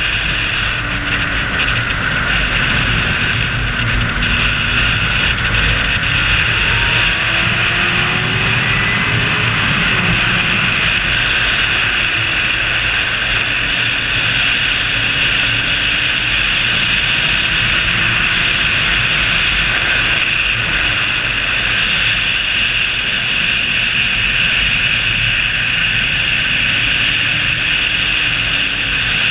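Sport motorcycle at speed on a track, heard from a camera mounted on the rider: a steady loud rush of wind with the engine note underneath, rising and falling in pitch through the lap.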